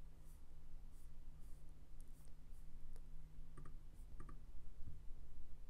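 A few faint computer mouse clicks, some in quick pairs, over a low steady hum.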